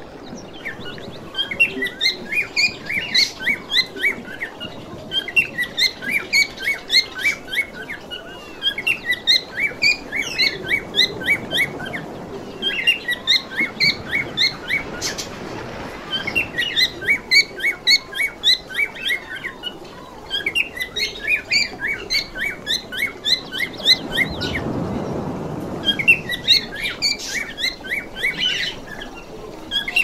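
Small pet parrots chirping and warbling in repeated bursts of quick, high notes, each burst lasting a few seconds with short pauses between.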